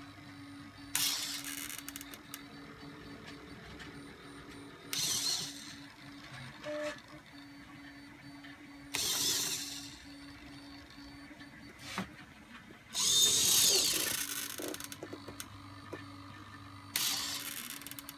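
Hobby servo motor driving the 3D-printed plastic worm gear in an InMoov robot's torso, running in five short bursts about four seconds apart, the longest and loudest about thirteen seconds in. A faint steady hum runs between the bursts.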